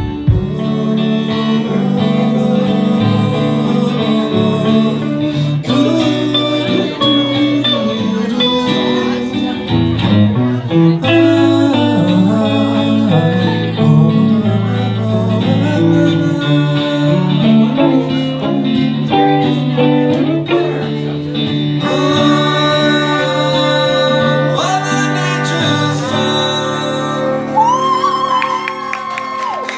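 Live music of guitars with a singing voice, a song played through to its final bars.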